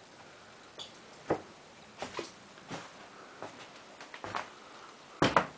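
Scattered light knocks and clicks, a second or so apart, with two louder knocks close together near the end.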